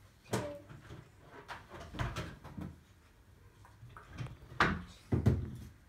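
A few scattered knocks and bumps, loudest about four and a half and five seconds in, typical of puppets or hands bumping against a wooden stool.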